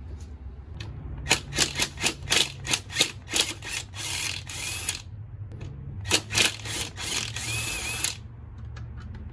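Cordless power driver taking fasteners out of a scooter's front panel. It goes in a string of quick trigger bursts, then longer runs at about four and at about seven seconds in.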